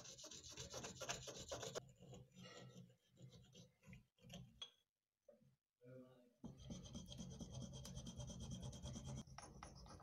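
A small steel piece rubbed back and forth by hand on wet sharpening stones: rapid scraping strokes, in two bouts with a short break about halfway through.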